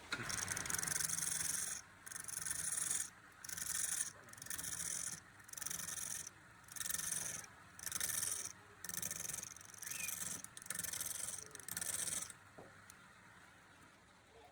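A hand tool worked over wood in repeated strokes, about ten rasping strokes of roughly a second each with short pauses between them, stopping about twelve seconds in.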